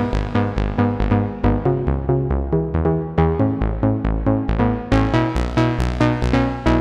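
Roland System-1 synthesizer playing a sequenced electronic pattern: short plucked notes at about four a second over a bass line, the tone growing brighter about five seconds in as the filter opens.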